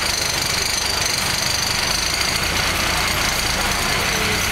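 City bus engine running steadily with a rattling vibration, heard from inside the bus, with a thin steady high whine above it.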